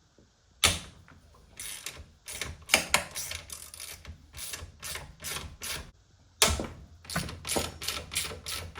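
Hand ratchet wrench clicking in a series of short strokes as a bolt is worked on the motorcycle, pausing briefly about six seconds in before the strokes resume.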